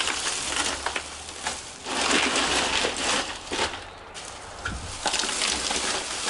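Ice cubes poured from a plastic bag into RTIC 45 and Patriot 50 quart hard coolers, clattering and rattling against each other and the plastic walls, with the bag crinkling. The pours come in several spells with short pauses between them.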